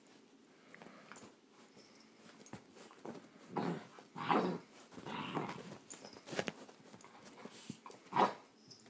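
Great Dane puppy giving several short vocal sounds, the loudest about four seconds in and another near the end.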